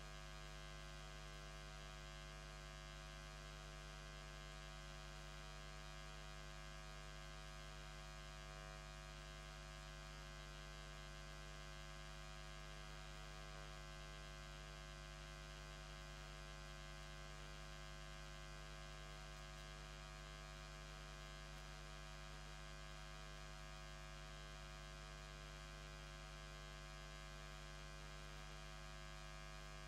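Faint steady electrical hum with a low buzz, unchanging throughout.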